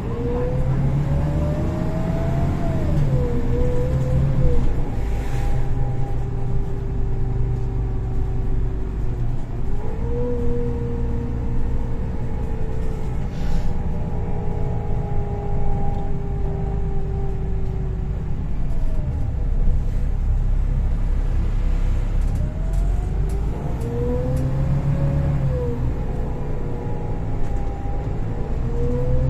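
Golden Dragon XML6125 city bus heard from inside, its engine and Voith automatic gearbox running under a steady low rumble. A whine rises as the bus accelerates, then drops sharply at a gear change. This happens a few times, about three seconds in and again around ten and twenty-five seconds, with cruising stretches at an even pitch between.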